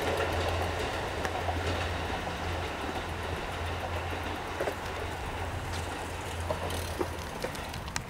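Kintetsu limited express electric train running along the tracks: a steady low hum under a noisy rumble with scattered sharp clicks, slowly fading.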